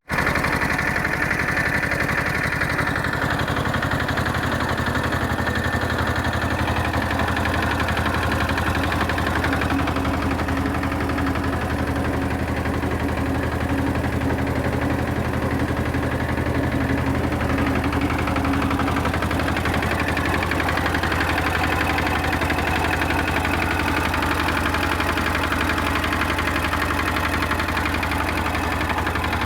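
Agrale 4100 tractor's M90 single-cylinder diesel engine running steadily, its firing pulses even and unchanging.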